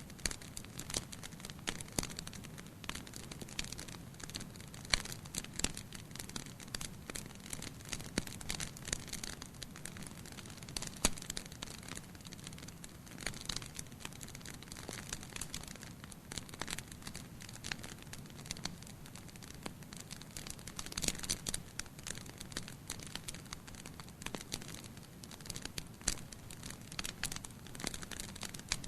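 Wood fire crackling: many irregular sharp pops and snaps over a steady low hiss of burning.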